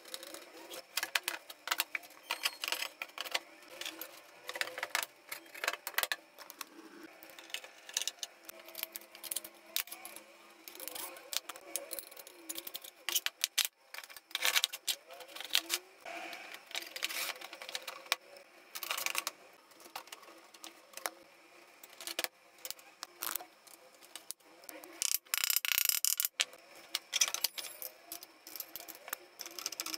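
Hand assembly of a flat-pack sink cabinet: irregular clicks, knocks and rattles of a screwdriver, screws and metal brackets against particleboard panels and drawer parts.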